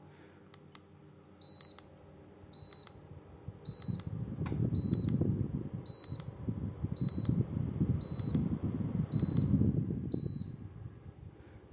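Air conditioner indoor unit beeping in acknowledgement of remote-control button presses: nine short high beeps about a second apart as the mode setting is stepped through. From about four seconds in, a fluttering low rush of air from the unit's fan.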